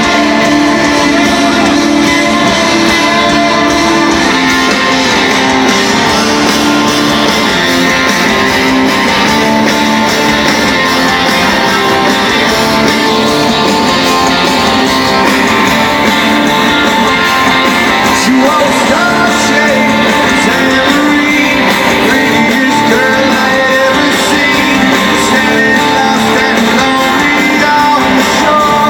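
Rock band playing live in an arena, with strummed electric guitars and a singing voice, thin in the bass.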